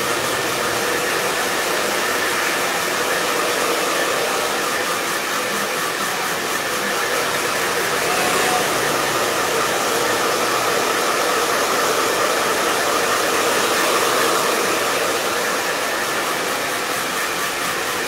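Hand-held hair dryer blowing steadily on a client's hair.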